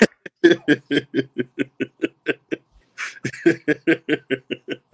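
Men laughing hard together: a rapid run of short 'ha' pulses, about four or five a second, easing briefly about halfway through and then picking up again.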